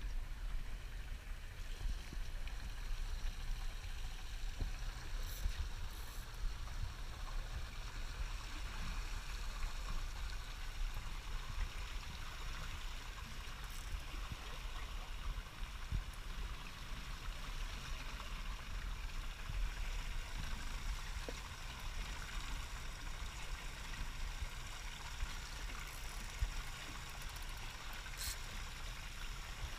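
Steady rush and splash of water against a boat, over a low rumble, with a few faint clicks.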